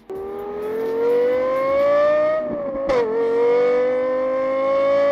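Car engine accelerating, its pitch climbing steadily. About three seconds in the pitch drops sharply, as at a gear change, then climbs again.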